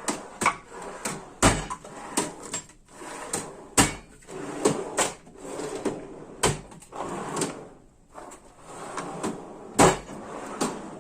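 Steel drawers of a Harbor Freight 5-drawer tool cart being pulled open and pushed shut one after another, sliding on their runners and clunking closed several times, free to move now that the locking bars are off.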